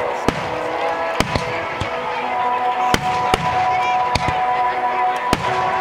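Aerial fireworks shells bursting: about nine sharp bangs at uneven spacing, some in quick pairs.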